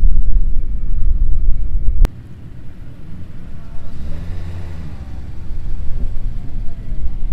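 Cars rolling slowly past: a lowered Lexus LS sedan pulls by at low revs, its engine note rising and falling briefly about four seconds in, and a Datsun Fairlady Z draws nearer toward the end. A loud low rumble fills the first two seconds and breaks off suddenly with a click.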